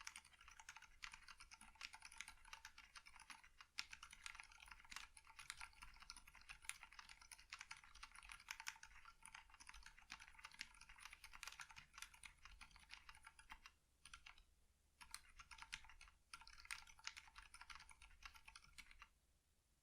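Fast typing on a Mekanisk Klippe S mechanical keyboard with lubed 70g Aliaz silent switches, a polycarbonate plate and ePBT keycaps: a quiet, continuous patter of keystrokes. It breaks off twice briefly in the later part and stops shortly before the end.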